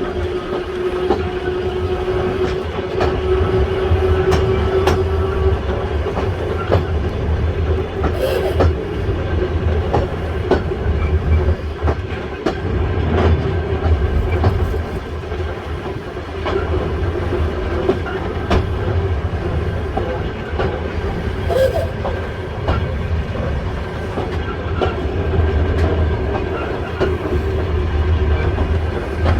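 Volk's Electric Railway car running along its narrow-gauge track: a steady low rumble with a hum from the electric drive, strongest in the first few seconds, and wheels clicking over the rail joints.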